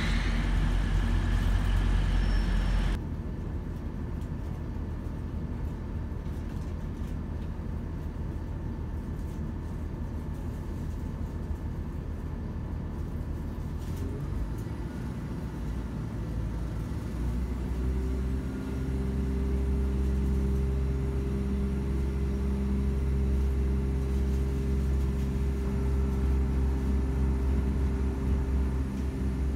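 Class 170 Turbostar diesel multiple unit heard from inside the carriage: about three seconds of louder train noise at the platform, cut off sharply, then the underfloor inline-six turbo diesel running quietly. About halfway through, the engine note comes up into a steady, louder drone as the unit takes power and moves off.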